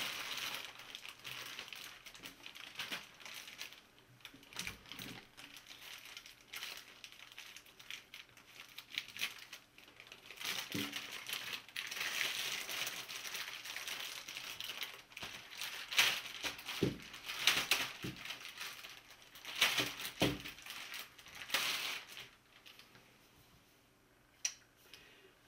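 Clear plastic bag crinkling and rustling as a hot air rework handpiece and its hose are pulled out of it, with a few light knocks along the way.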